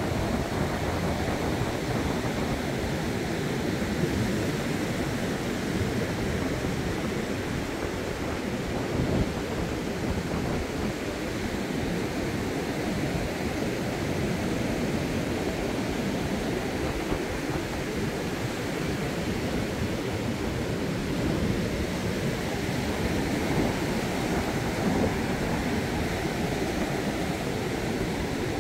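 Steady roar of a rough sea's surf breaking on the beach, mixed with wind rumbling on the microphone.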